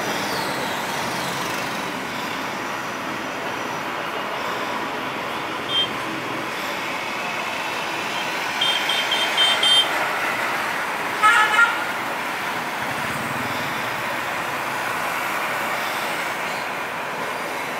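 Boeing 737-800's CFM56 jet engines at takeoff power, a steady distant roar as it rolls and lifts off. Vehicle horns toot over it: a short toot about six seconds in, a quick run of five beeps a few seconds later, and the loudest honks about eleven seconds in.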